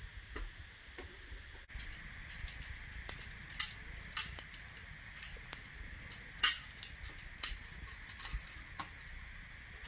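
Springfield XD9 pistol magazine being reassembled by hand: irregular clicks, ticks and small scrapes as the spring and baseplate are pushed back onto the magazine body. The sharpest clicks come about three and a half and six and a half seconds in.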